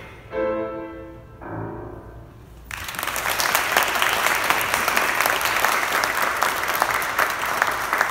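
Grand piano playing the closing chords of a piece, which ring out and fade; about three seconds in, an audience breaks into steady applause, louder than the piano.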